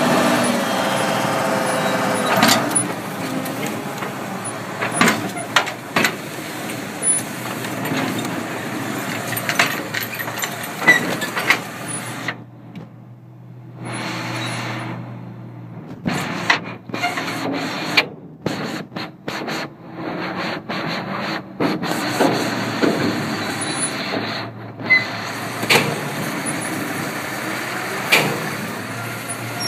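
John Deere 6900 tractor's six-cylinder diesel engine running, heard from inside the cab, with frequent sharp clicks and knocks. The recording is distorted, and the sound drops out briefly several times about halfway through.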